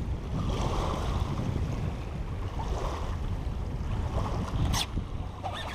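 Wind buffeting the microphone over small waves lapping on a stony shore, with one sharp click about five seconds in.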